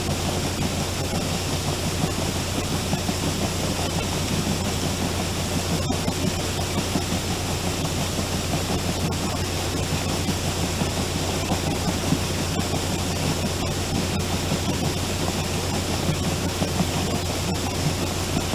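Grain auger running and pouring winter barley into a bin: a steady rushing hiss of falling grain over a constant low motor hum.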